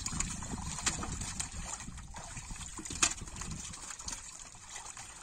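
Water splashing and trickling as live fish are handled in a net in shallow water and dropped into metal pots, with a few sharp knocks, the loudest about three seconds in.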